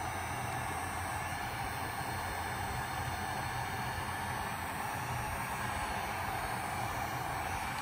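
Handheld heat gun blowing steadily, a continuous even whoosh.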